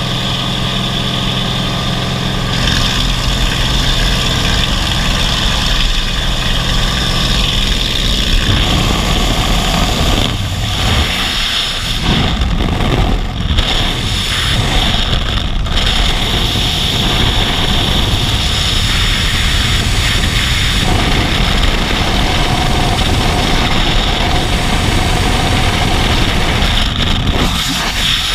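Jump aircraft's engine and propeller droning steadily inside the cabin by the open door. About eight seconds in, this gives way to loud rushing wind on the camera microphone during free fall.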